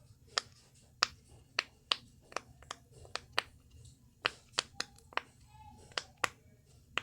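A dolphin puppet fidget toy being pressed: a string of sharp pops and crunchy clicks, about two a second, unevenly spaced.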